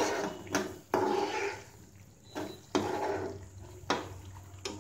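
A spoon stirring a thick, bubbling coconut and sugar-syrup mixture in a non-stick pan, with several sharp knocks and scrapes of the spoon against the pan. The mixture is being cooked down until it thickens for burfi.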